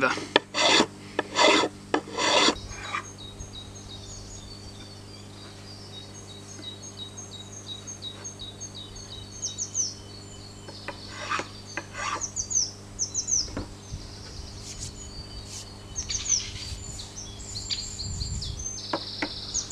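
A metal file rasping across a hickory axe handle in about five quick strokes over the first three seconds, taking down burrs and ridges left where the head was forced on; fainter scattered strokes follow. Birds chirp from about three seconds on.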